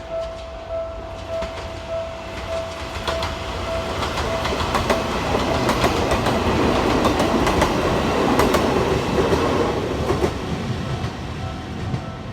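Level-crossing warning bell ringing in a steady repeating ding, then a train passes over the crossing: its rumble and wheel clicks over the rail joints swell from about four seconds in, are loudest in the middle, and die away near the end as the bell is heard again.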